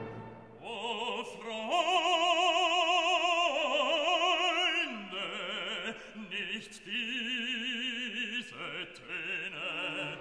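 Operatic singing with strong vibrato on long held notes, in two phrases with a short break between them.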